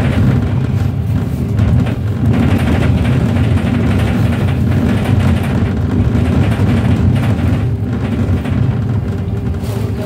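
Switch Mobility MetroCity electric single-deck bus running, a steady low rumble.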